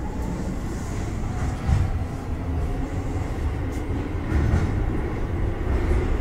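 Keio 8000 series train running through a subway tunnel, heard from inside the car: a steady low rumble of wheels and running gear.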